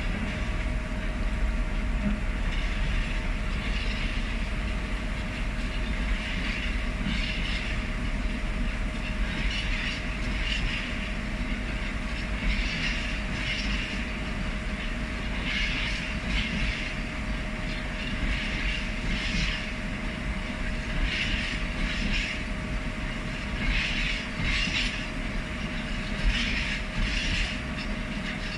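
Freight train of bogie tank wagons rolling past steadily. The wheels clatter over the rail joints in pairs of beats every few seconds, over a continuous low rumble.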